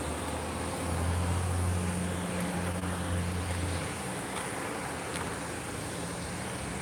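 Wind rushing over the microphone, with a steady low vehicle engine hum that swells about a second in and fades after about four seconds.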